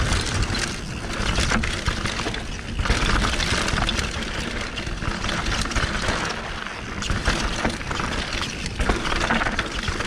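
Mountain bike riding fast down a dry dirt and stone trail: tyres rolling over loose dirt and stones, with a steady stream of rattling clicks from the bike over the bumps, and wind rumbling on the camera microphone.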